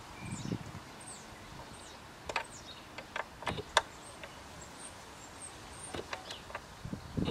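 A few sharp metallic clicks from about two seconds in as an Allen key works loose the rear brake caliper bolts on a motorcycle, with small birds chirping in short, falling notes.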